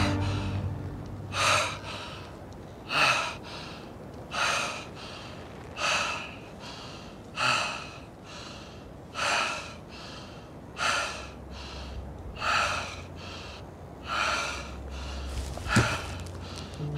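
A man breathing hard and ragged, a loud gasp about every second and a half with quieter breaths in between. A sharp click comes near the end.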